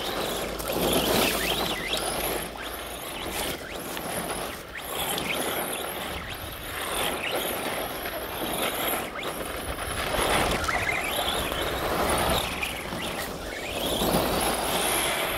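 Arrma Senton Mega RC truck's 3421 KV brushless motor whining up and down in pitch as the truck accelerates, brakes and slides on loose dirt, with its tyres spraying dirt and grit. The sound swells and fades over several passes.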